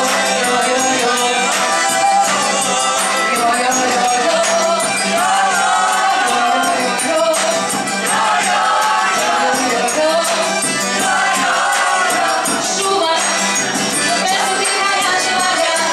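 Live acoustic band playing a song: a woman singing into a microphone over accordion and strummed acoustic guitar, with jingling percussion.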